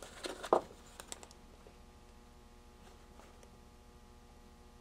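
Light handling noise: a steel ruler and pencil being set down and shifted on a paper notepad, a few small clicks and taps in the first second or so, then a quiet room with a faint steady hum.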